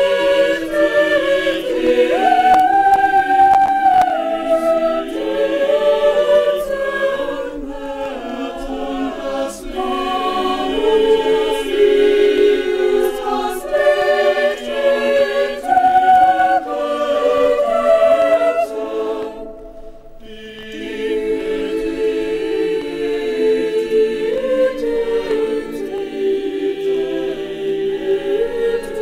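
A choir singing, many voices holding chords that shift every second or so, with a short break about twenty seconds in.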